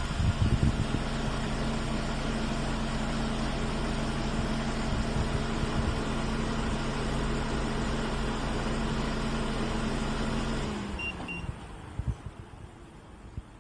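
Hyundai Porter 2's diesel engine idling steadily, then shutting off about eleven seconds in. Two short high beeps follow at once, then a few light clicks.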